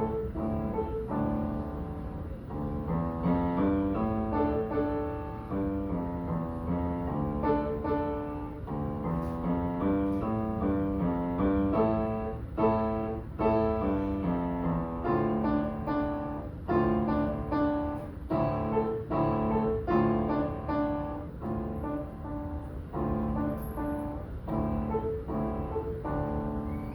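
Solo piano playing continuously, with repeated rising-and-falling runs of notes in the middle register.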